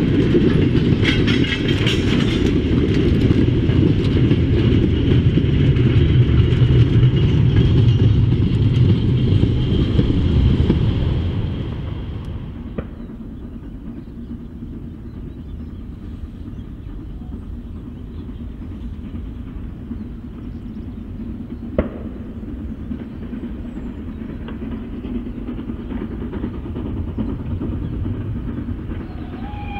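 Steam-hauled heritage train passing close by: a loud rumble with a thin high ringing tone over it for about the first eleven seconds, then dropping to a quieter, more distant rumble with a couple of faint clicks.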